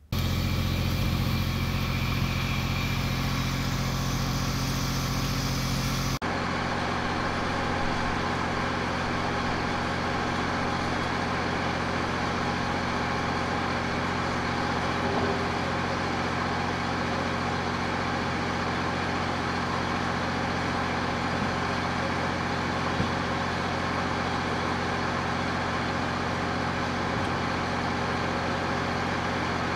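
Heavy engine of a crane running steadily at an even, low pitch while it holds a suspended steel frame. The sound shifts abruptly about six seconds in.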